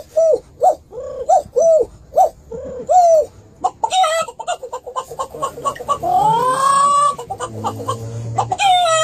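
A run of varied bird-like calls: short arched hoots repeated about twice a second for the first three seconds, then a stretch of rapid clicks, a long rising call about six seconds in, and a falling call near the end.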